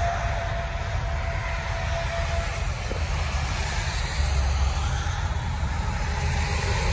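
Steady highway traffic noise on a wet road: engines idling in a stopped line of cars and trucks, with traffic moving on the far lanes.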